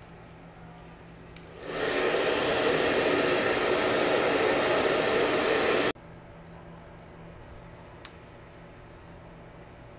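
An electric blower of the hair-dryer kind starts about two seconds in with a steady rush of air and cuts off abruptly about six seconds in.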